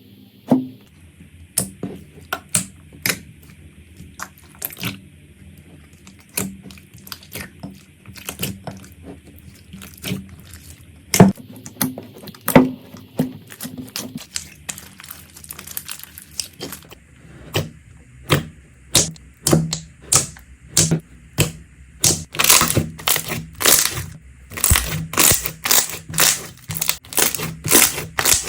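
Slime being pressed and squeezed, making sharp crackling pops and clicks at an uneven pace, which come much faster and closer together in the last few seconds.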